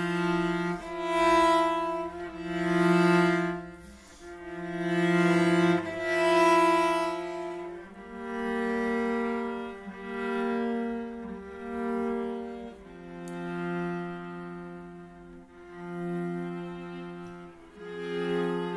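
Cello and violin playing a slow duet in long bowed notes, each note swelling and then fading.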